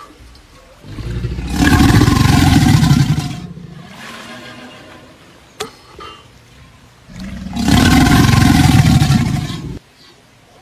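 A giant crocodile creature roars twice, each a deep roar about two and a half seconds long, the first starting about a second in and the second about seven seconds in.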